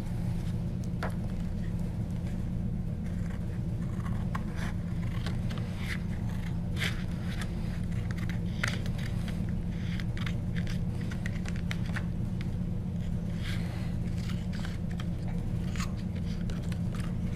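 Scissors cutting through a sheet of paper: irregular snips and paper rustling over a steady low hum.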